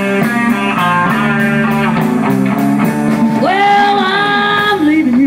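Slow blues with a lead electric guitar solo over a band, with an even cymbal beat. About three and a half seconds in, the guitar bends a note up and holds it with vibrato.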